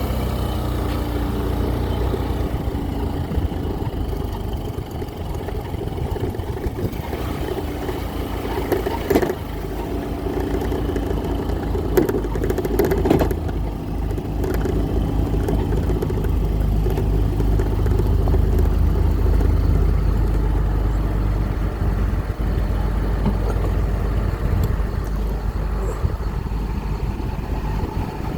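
An engine running steadily with a low rumble, with a few short clanks about nine, twelve and thirteen seconds in.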